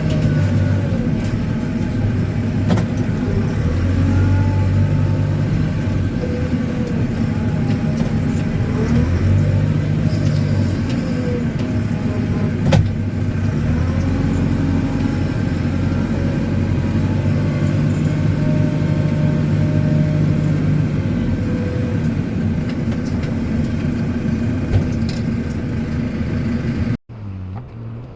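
JCB 4CX backhoe loader's diesel engine running, its pitch rising and falling every few seconds as the hydraulics work the boom and bucket digging, with an occasional metallic knock. About 27 seconds in it gives way abruptly to a quieter, windier sound.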